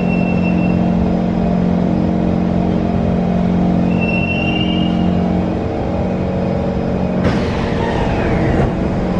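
SMRT C151 metro train coming to a stop at a platform, with a steady low hum and a thin high squeal from the running gear at the start and again about four seconds in. About seven seconds in, the saloon doors open with a sudden onset and a falling whine lasting about a second.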